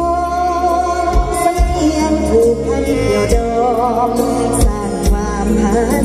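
Live mor lam band music with a singer holding long, wavering notes over a sustained bass and regular drum beats, played loud over a stage PA.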